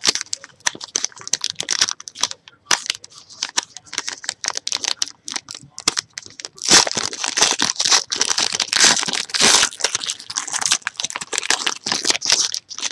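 Foil trading-card pack wrapper being torn open and crinkled in the hands: a dense run of crackles and rustles that gets louder in the second half.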